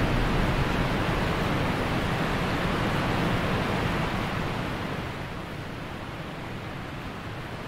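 A steady rushing noise that eases down about five seconds in.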